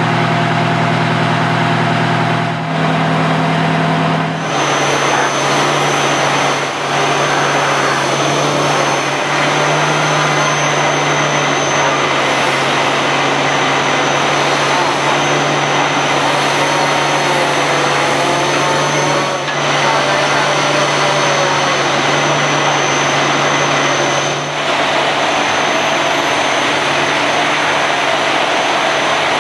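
Fire truck engines running at a steady, loud drone.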